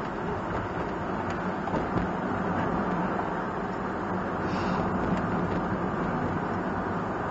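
Kei one-box van driving at a steady speed, heard from inside the cabin: an even rumble of road and engine noise with a low hum. A short hiss comes through about four and a half seconds in.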